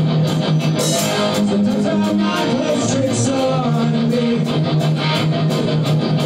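Live rock music led by a white Stratocaster-style electric guitar playing an instrumental passage of held notes over a steady beat.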